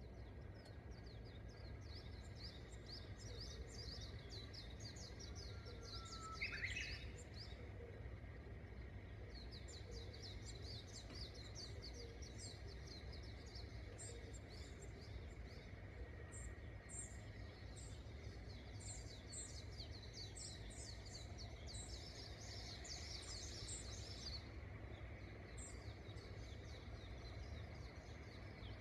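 Small birds chirping rapidly and continuously. About six seconds in, a Japanese bush warbler sings once: a held whistled note that sweeps up into a quick flourish. A steady low rumble runs underneath.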